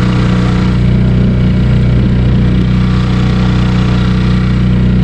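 Yamaha 3 hp outboard motor running steadily at an even pitch, pushing an inflatable boat under way.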